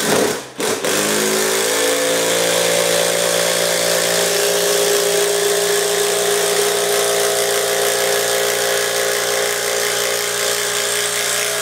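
12-volt Milwaukee cordless impact driver hammering steadily as it drives a long screw into a 4x4 post without stalling. It speeds up with a short rise in pitch about a second in, then holds an even buzz.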